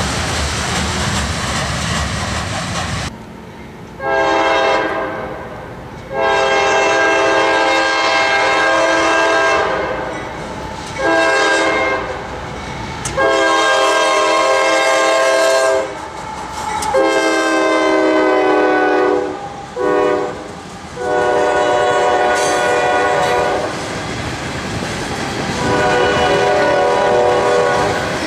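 Diesel locomotive multi-chime horn sounding a series of short and long blasts over the rumble of the passing train, the pitch dropping partway through as the locomotive goes by. Before the horn begins, there are a few seconds of train rumble.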